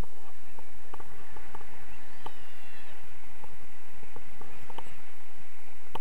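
Wind rushing over the camera's microphone during a tandem paraglider flight: a steady low rumble with scattered small clicks, and a brief high tone about two seconds in.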